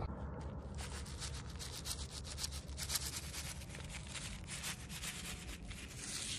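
Paper seed packet being shaken and tapped over dry soil to sow spinach seeds: a continuous, irregular dry rustle and patter of packet and falling seeds, over a low steady rumble.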